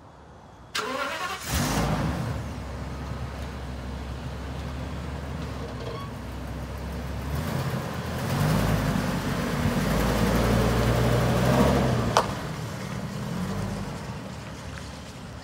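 Ford E450 Super Duty box truck's 6.8-litre V10 gasoline engine cranking briefly and catching about a second in, then idling, then revving as the truck pulls away. A sharp click sounds about twelve seconds in, and the engine fades as the truck moves off.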